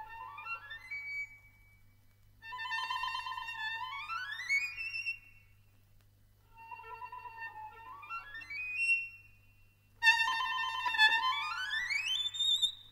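Solo violin playing four short phrases with brief pauses between them. Each starts on a held note and sweeps quickly upward, and the last climbs highest and ends on a held high note. Played from a vinyl LP, with a low steady hum underneath.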